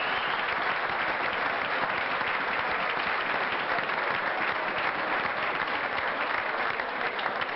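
Arena crowd applauding: dense, steady clapping from a large audience.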